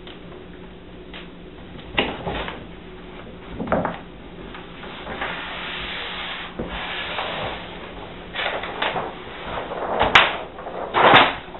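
Hands rubbing and sliding a wet sheet of faux-granite adhesive film across a countertop while working it into the corner, in irregular rubs and rustles with a sharp click about ten seconds in.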